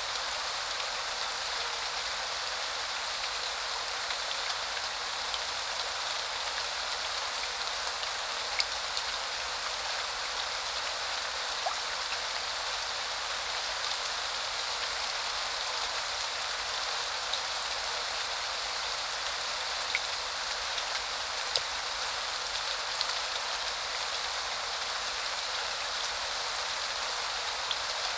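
Steady spring rain falling, an even hiss with scattered individual drops ticking on a surface.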